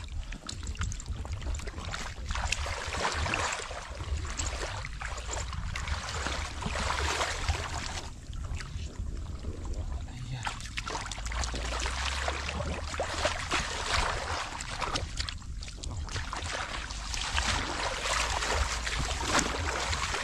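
Hands splashing and sloshing through shallow, muddy water in irregular surges while groping for fish.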